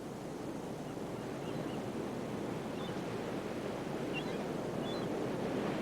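Steady rushing outdoor background noise that slowly grows a little louder, with a few faint, short, high chirps.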